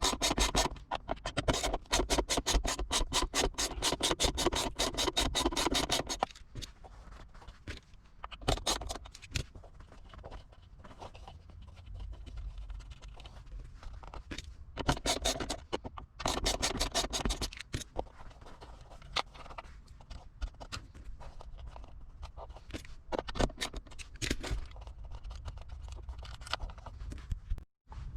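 Hand ratchet clicking in rapid runs as the center console screws are backed out. There is a long run of quick, even clicks at the start and another about fifteen seconds in, with scattered clicks and small scrapes between.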